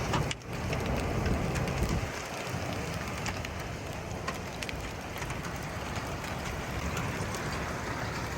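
Heavy rain falling in a severe thunderstorm, a steady hiss with scattered sharp ticks of drops striking. A deeper rumble runs through the first two seconds, then the hiss goes on more evenly.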